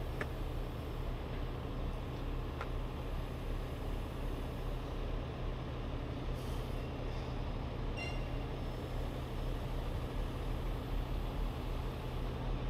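Steady drone of a heavy truck's diesel engine running, with a few faint ticks.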